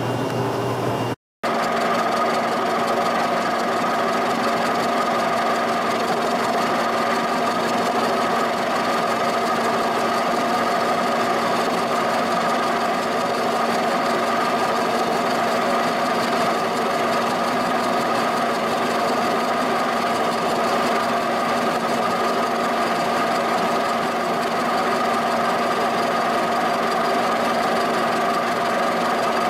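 Giddings & Lewis horizontal boring mill running steadily with a constant machine whine, its milling cutter facing the rough cast-iron base of an old shaper.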